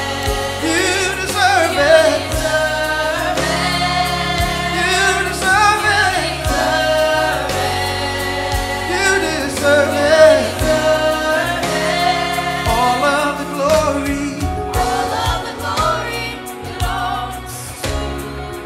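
Gospel praise song: singers holding long, sliding notes over a backing band with bass and drums.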